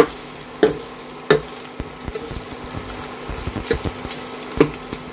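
Chopped onions and ginger-garlic paste sizzling in hot oil in a stainless steel kadai, being fried until brown. A spatula stirs them and knocks sharply against the pan about five times.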